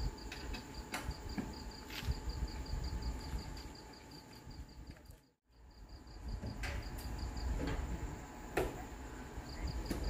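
Night-time outdoor ambience: an insect chirping in a fast, even pulse of about five short high chirps a second over a steady low rumble, with a few sharp clicks. The sound drops out for a moment about halfway through.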